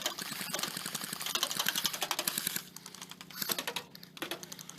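Airsoft guns firing on full auto: a long burst of rapid clicking shots for about two and a half seconds, then shorter bursts.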